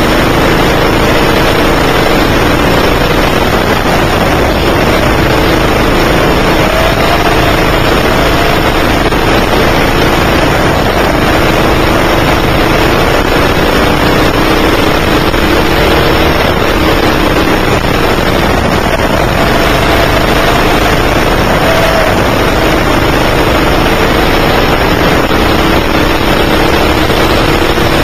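9 hp kart engine running hard, heard loud and close, its pitch rising and falling several times as the kart accelerates and slows through the corners.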